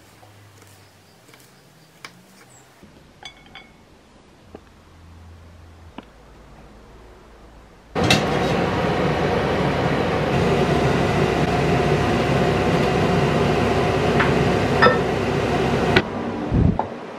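A kitchen knife mincing ginger on a wooden chopping board, a few light taps. About eight seconds in, the loud, steady rush of a covered stainless steel steamer pot boiling and steaming starts suddenly, with a couple of metal clinks from the lid. It cuts off near the end, followed by a couple of knocks.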